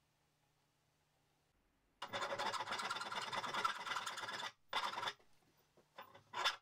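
Near silence for the first two seconds, then a flat hand file rasping across the rusty steel head of an old hammer held in a vise: one long stroke, a shorter one, and two quick short strokes near the end.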